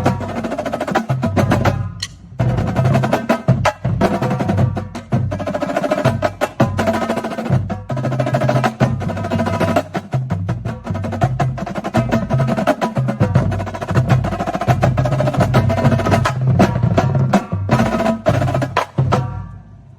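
Drum corps drumline playing a fast, loud passage: rapid snare strokes over pitched bass drums stepping between notes. The playing stops about a second before the end.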